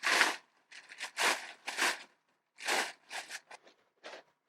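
A string of short rustling, crinkling noises, about eight in a few seconds, irregularly spaced.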